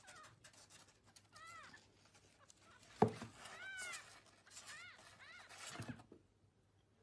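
Newborn kitten mewing, a few thin, high-pitched cries that rise and fall. There is a sharp knock about three seconds in.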